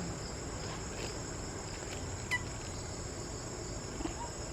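Steady high-pitched chorus of insects, such as crickets, with a single short, sharp chirp a little over two seconds in.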